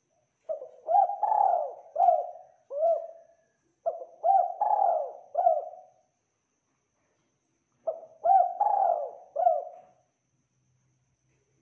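Spotted dove (tekukur) cooing: three song phrases, each a run of several short, low coos, the last after a pause of about two seconds.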